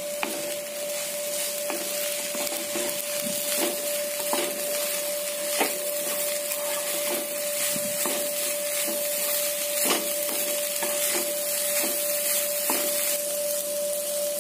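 Egg fried rice sizzling over a high flame in a nonstick kadai while a wooden spatula stirs it, knocking and scraping against the pan at irregular intervals of about a second. Under the hiss runs a steady high tone.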